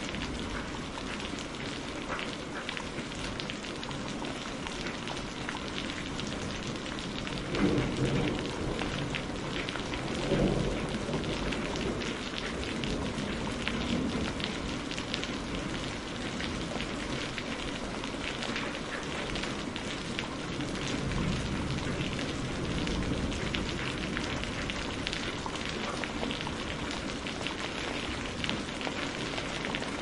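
Steady heavy rain with a dense patter of drops, and low rumbles of thunder rising briefly about eight and ten seconds in, with softer rumbles later.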